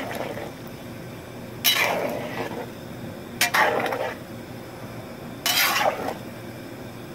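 A long wooden paddle stirring a large pot of gumbo, sloshing and scraping in three strokes about two seconds apart.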